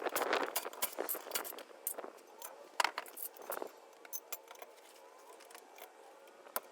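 Light metallic clinks and clicks, several in quick succession over the first few seconds, like small metal objects being handled, then a faint hiss with one more click near the end.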